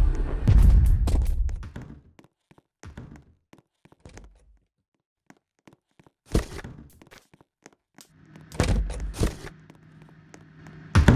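A low rumble that fades out within the first two seconds, then scattered light knocks and a few thuds, the loudest one near the end.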